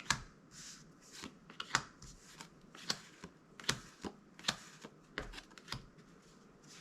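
Magic: The Gathering trading cards being handled and flipped through one at a time. Each card gives a short snap or slide, about every half second.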